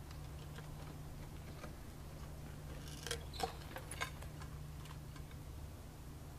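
A few light clicks and knocks, clustered about three to four seconds in, as a book and a wooden lectern are handled, over a steady low hum.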